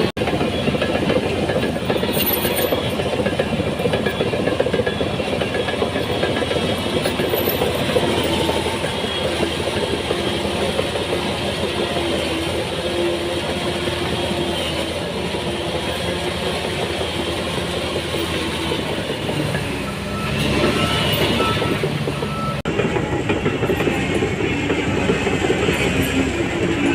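Shantui DH17C3 crawler bulldozer working, its diesel engine running under load and its steel tracks clanking and rattling steadily. The sound changes abruptly near the end at a cut in the recording.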